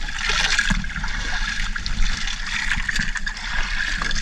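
Seawater splashing and trickling around a small fishing boat's hull and wet net, a steady rushing hiss with scattered small knocks.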